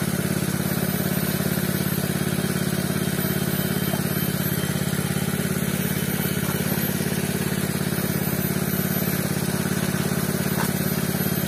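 A small single-cylinder Robin petrol engine running steadily at constant speed, powering the pepper-washing setup.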